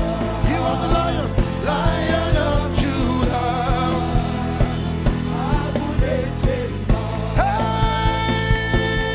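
Live gospel worship music: a band plays a steady beat with bass and sustained chords while a voice sings long, wavering lines over it.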